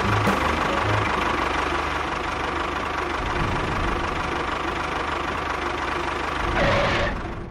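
Engine of a small home-built mini tractor running steadily, with a louder surge near the end before the sound cuts off suddenly.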